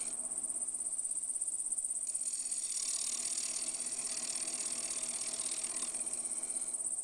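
Wood lathe running as a carbide tool cuts a Bois d'Arc duck call barrel, over a steady high-pitched whine with a fine rapid flutter; the cutting is a little louder between about two and six seconds in.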